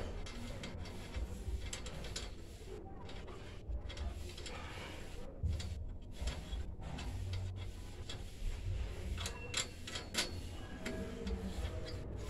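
Small, irregular metallic clicks and ticks as the screw clamping the antenna's bracket to a metal pole is turned and tightened by hand, over a low rumble. The clicks come more thickly in the last few seconds.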